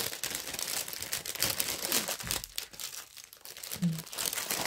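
Clear plastic packaging crinkling in the hands as it is picked up and handled, with irregular crackles.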